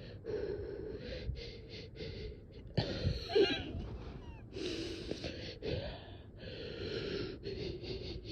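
A person's labored, gasping breathing: a run of audible breaths in and out, a few of them louder and carrying a whistling note, about three and five seconds in. It is the sound of someone short of breath, struggling to take a deep breath.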